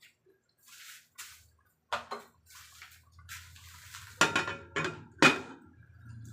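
Cookware and utensils being handled: soft scraping and shuffling, then several sharp metal clanks, the loudest three in quick succession in the second half, over a low steady hum.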